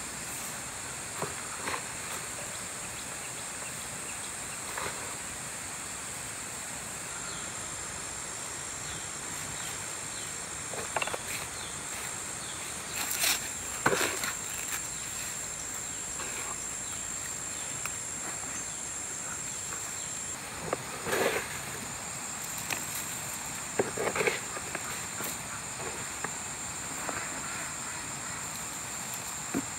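Insects chirring steadily at a high pitch, with a few short knocks and rustles scattered through, the loudest about halfway in and again a little later.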